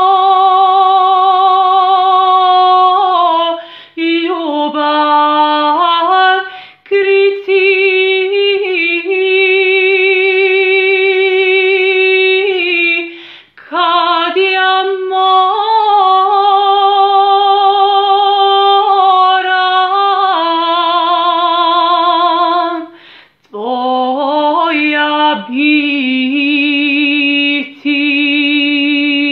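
A woman singing a sevdalinka unaccompanied, holding long notes with a wide, wavering vibrato and ornamented turns between them. Phrases are broken by short breaths, and the last phrase settles on a lower held note.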